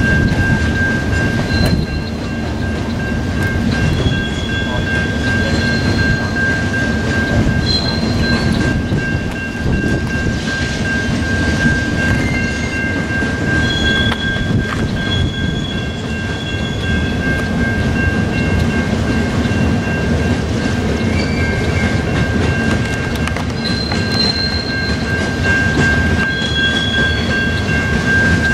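Iron-ore hopper cars rolling past on the track: a steady rumble and clatter of wheels on rail. A constant high squeal runs throughout, with shorter, higher squeals from the wheels coming and going every few seconds.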